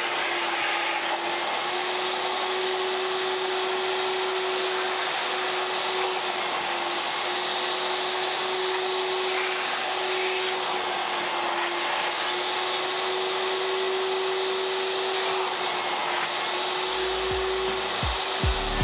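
Vacuum cleaner running steadily, a constant rushing of air with a steady motor whine over it, sucking up dirt from the car's interior.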